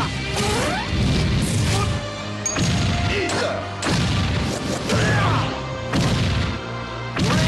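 Cartoon fight sound effects: sword slashes and hits landing about once a second, over background music.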